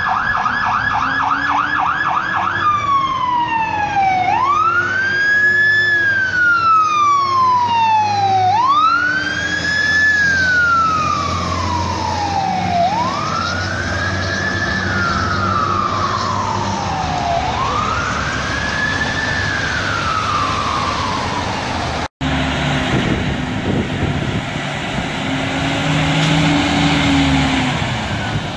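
Aerial fire truck's electronic siren: a fast yelp for about two seconds, then a slow wail that falls and rises about every four and a half seconds, with the truck's engine underneath. After a sudden break, a lower engine sound with a low tone that rises and falls.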